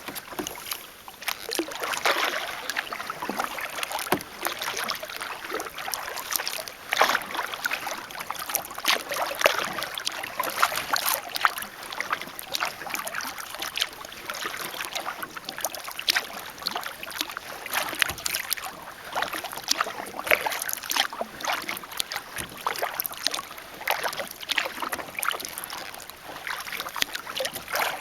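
Kayak paddling: the blades dip and splash at an irregular stroke pace, water drips off them, and small water sounds come from around the hull.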